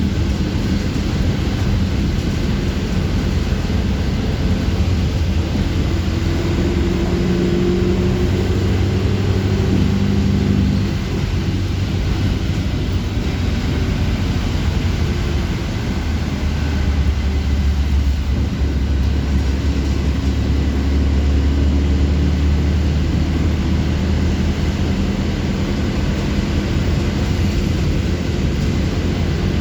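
Bus engine and road noise heard from inside a moving city bus: a steady low drone. The engine note rises about six to ten seconds in, and a deeper hum comes in from about sixteen seconds.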